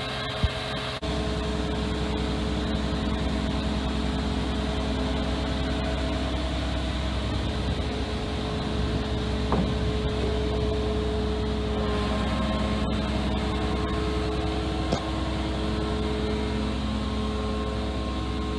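Diesel engine of a crane lorry running at a steady speed, a low hum with several steady tones above it, beginning about a second in. The engine is kept running to work the lorry-mounted HIAB crane holding the boat.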